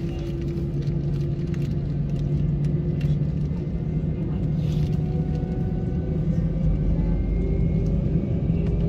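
Airbus A320's IAE V2500 turbofan engines at low taxi thrust, heard from inside the cabin: a steady low rumble with a hum. In the second half a few of the engine tones slowly rise in pitch.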